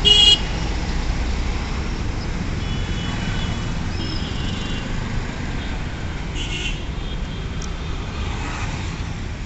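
Steady road traffic at a busy junction, with engines and tyres rumbling as cars, a bus and motorcycles pass. A short, loud vehicle horn sounds right at the start, and a second, shorter horn comes about six and a half seconds in.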